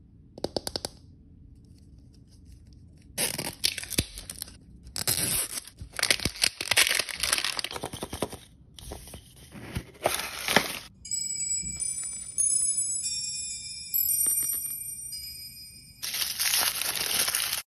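Paper wrapper of an L.O.L. Surprise paper ball being torn and crumpled by hand, in repeated loud bursts. In the middle the tearing gives way for several seconds to a few high, steady tones, then it starts again near the end.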